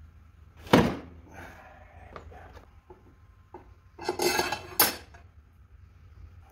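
Metal clanking while working in a riding mower's battery compartment: one sharp clank about a second in, a few light clicks, then a short burst of rattling metal-on-metal clatter a little past halfway.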